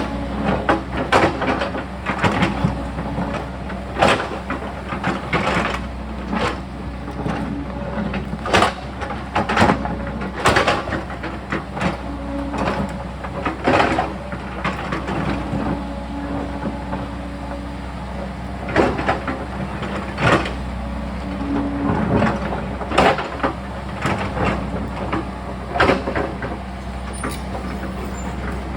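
Sany excavator's diesel engine running steadily while the bucket scrapes and knocks against rock and stones, in many sharp, irregular clanks.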